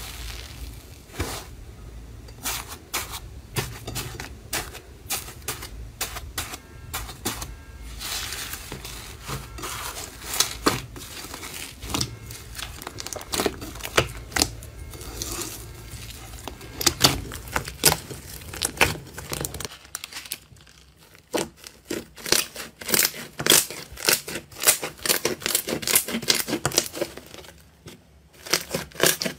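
Thick slime squeezed, poked and stretched by hand, making a dense run of sharp wet clicks and pops, sharper and more spaced out in the last third.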